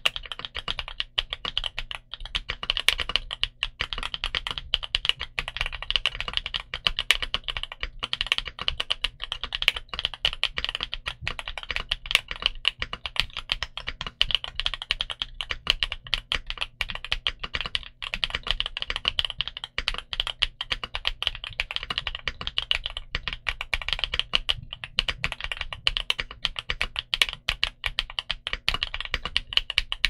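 Continuous fast typing on a Monsgeek M1V3 mechanical keyboard fitted with Akko V3 Cream Blue Pro tactile switches and Akko silent PBT Cherry-profile keycaps: a dense, steady run of keystrokes.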